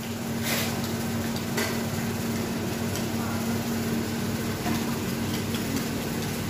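Steady room hum with a low drone, and a couple of light clicks and rustles about half a second and a second and a half in as children handle books and pens.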